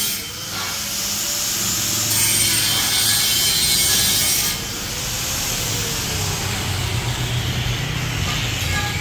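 Handheld angle grinder grinding into a long metal exhaust pipe, a steady harsh grinding that grows harsher about two seconds in and eases off about four and a half seconds in.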